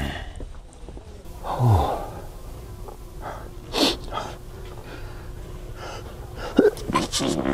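Fake sneezes and wet fart noises from a Sharter remote fart-sound device, heard as several separate short bursts mixed with gasps and breaths.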